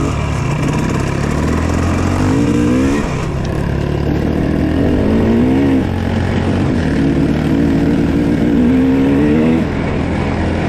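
Dirt bike engine under throttle, rising in pitch three times and dropping back each time, over a steady low engine drone.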